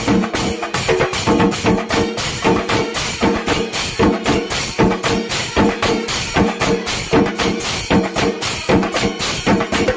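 Sinkari melam and band-set music: fast, dense drumming with cymbal strokes under held pitched notes that change every second or so.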